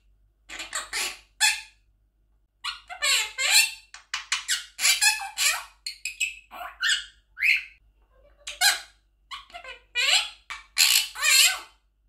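Blue monk parakeet (Quaker parrot) talking in a high, squeaky mimicked voice, saying phrases such as "you are so cute" and "how are you" as a run of short bursts, with a brief pause about two seconds in.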